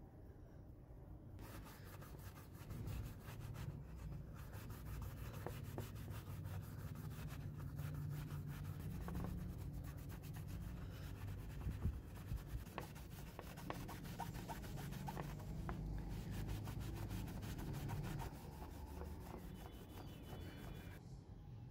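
A cloth rubbing a plastic plier handle with quick repeated strokes, starting about a second in, with a couple of sharper knocks about halfway through.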